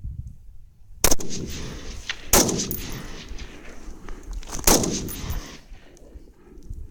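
AR-15 rifle firing 5.56 rounds: three single shots, the second about a second and a quarter after the first and the third about two and a half seconds later, each followed by a long echoing tail.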